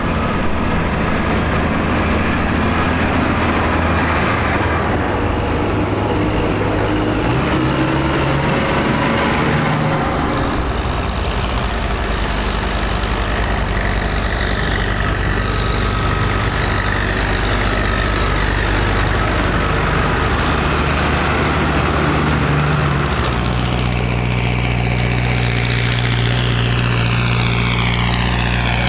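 Diesel farm tractors, Massey Ferguson and New Holland, running as a line of them drives past one after another. The engine note changes each time a new tractor comes by, most plainly about 7, 10 and 23 seconds in.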